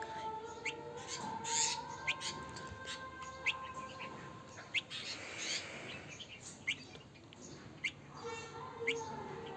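Baby bulbul chirping: short, sharp rising chirps, roughly one a second.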